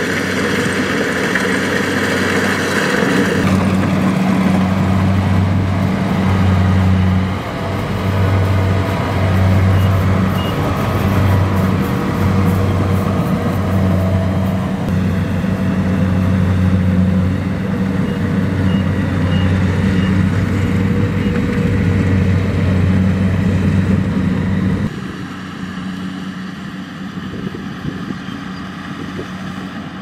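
Kubota DC-70 Plus rice combine harvester's diesel engine and threshing machinery running under load while cutting rice, a loud low hum that swells and dips; it drops in level near the end.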